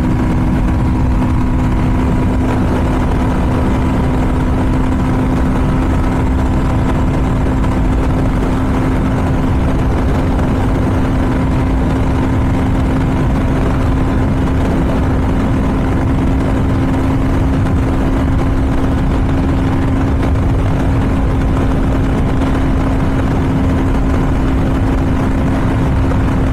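Royal Enfield Guerrilla 450's 452 cc single-cylinder engine held at full throttle in fifth gear near top speed, about 150 to 160 km/h, its steady tone barely changing, under heavy wind rush on the microphone.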